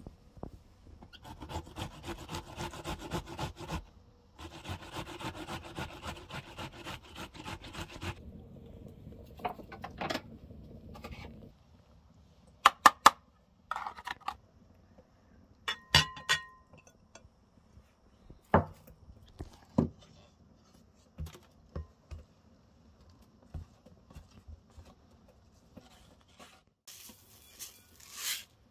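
An onion being grated on a metal box grater, in two runs of rasping strokes. This gives way to a lower steady noise from a lidded pot cooking on the heat, then scattered clinks and knocks of kitchen utensils, a couple of them ringing like glass.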